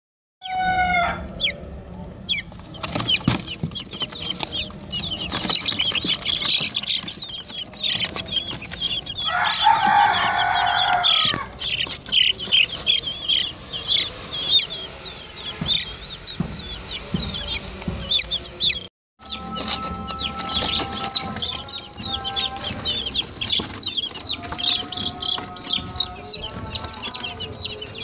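Baby chicks peeping constantly, a dense run of short, high-pitched cheeps. A louder, lower call breaks in about ten seconds in.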